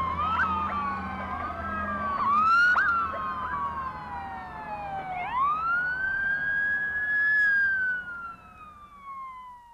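Several emergency-vehicle sirens wailing over one another, with quick rising whoops. About five seconds in, one siren rises steeply, then slowly falls in pitch and fades out near the end. A low steady rumble sits beneath them for the first two seconds.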